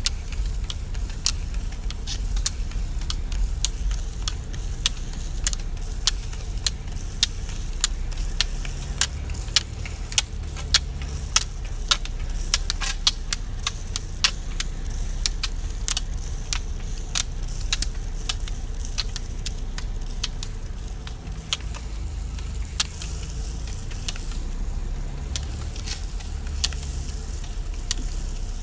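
Low steady rumble of a slowly driven car, with sharp regular clicks of a roller skier's pole tips striking the asphalt, about one to two a second, thinning out over the last several seconds.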